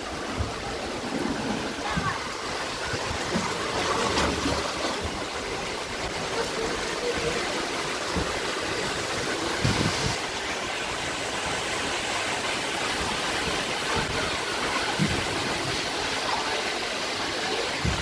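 Steady rush of running water at a water park, with faint voices of people in the background.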